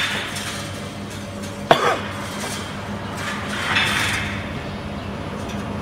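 Steel wires being handled on a hexagonal wire netting machine: one sharp metallic clank a little under two seconds in that rings briefly and falls in pitch, and a rasping scrape near four seconds, over a steady low hum.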